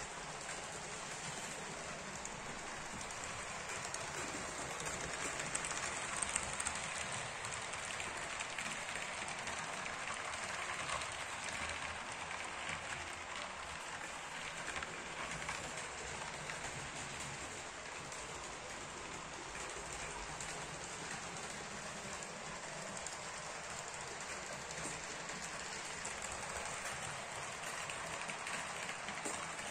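HO-scale model trains running on the layout's track: a steady, even hiss of wheels on rails and running motors, swelling slightly a few seconds in.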